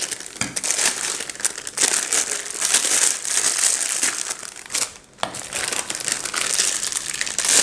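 Plastic piping bag crinkling as it is handled and filled with pastry cream, with a brief let-up about five seconds in.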